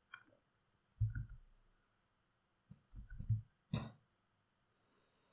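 Faint low throat and breath sounds from a man, about a second in and again around three seconds, and one sharp click shortly before four seconds.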